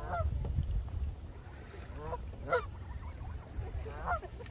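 Canada geese honking: a few short calls, the loudest about two and a half seconds in, over a steady low rumble.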